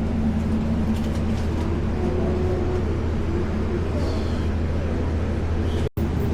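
Steady low rumble of vehicle noise, with a brief break about six seconds in.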